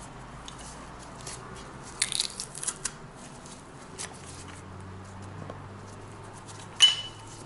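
Handheld garlic press crushing garlic cloves. There is a crunching squeeze about two seconds in, a click a couple of seconds later, and a sharp click with a brief metallic ring near the end.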